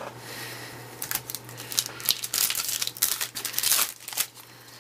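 Crinkling of a trading-card pack wrapper being handled and torn open, in a dense run of irregular crackles that peaks in the middle and fades near the end.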